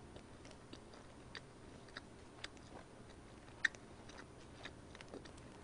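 Close-miked chewing of food: faint, irregular wet mouth clicks and smacks, with one sharper click about three and a half seconds in.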